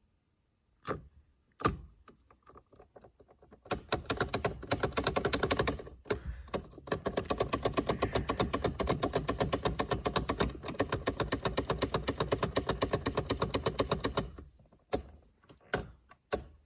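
A few plastic clicks from a first-generation Dodge Neon's turn signal and headlight stalk being worked, then a rapid, steady electronic warning chime from the dash, about seven pulses a second for some ten seconds with a short break, and a few more stalk clicks near the end.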